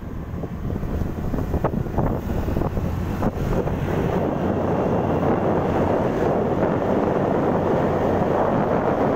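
Motorcycle running along at road speed, with wind buffeting the microphone. From about four seconds in, as the bike enters a tunnel, the sound grows fuller and a little louder.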